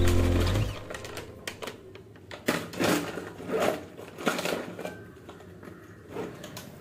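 Rustling and clicking of a handbag being packed: a crinkly snack packet goes in, then the bag's strap buckle clicks, in irregular small clicks and rustles with a few louder ones in the middle. Background music fades out in the first second.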